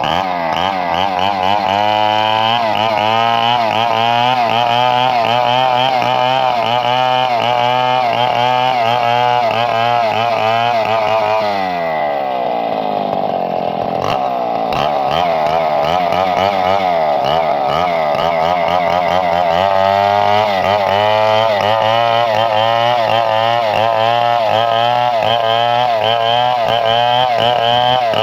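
Chainsaw engine revved to full throttle with a wavering pitch. About twelve seconds in it drops back towards idle, then revs up again a couple of seconds later and runs high to the end.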